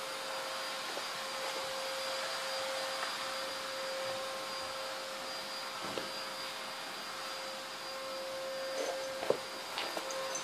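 Steady hiss and hum of a running motor with a constant whine. A few short sounds come near the end, the sharpest about nine seconds in.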